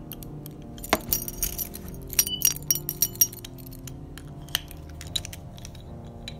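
Metal door bolt and padlock being worked: a run of sharp metallic clicks and clinks as the bolt is slid and the padlock is hooked through the hasp and snapped shut, then two lighter clicks later on, over soft background music.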